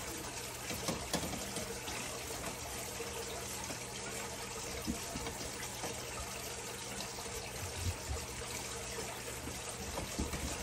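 Butter-and-flour roux sizzling gently in a stainless steel saucepan as it is stirred, with a steady low hum underneath.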